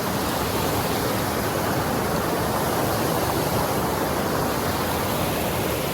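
A waterfall rushing: a steady, dense hiss of falling water that cuts in and out abruptly.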